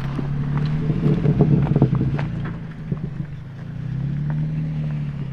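Jeep Wrangler engine working up a steep dirt trail, the revs swelling to their loudest a second or two in, easing off near three seconds, then building again.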